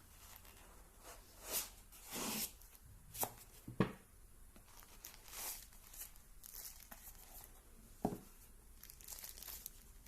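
Flashlight packaging being handled and opened by hand: scattered crinkling and tearing rustles, with a few sharp clicks, the sharpest about four and eight seconds in.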